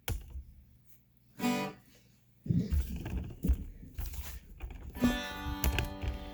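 A guitar is handled with a few knocks and taps, then a chord is strummed about five seconds in and left ringing.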